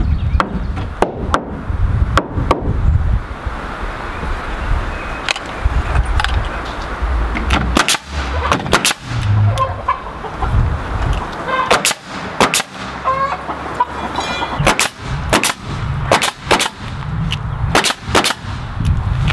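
Pneumatic coil siding nailer (DeWalt) firing nails through rough-sawn trim boards into wooden siding: dozens of sharp nail shots at an uneven pace, some in quick pairs.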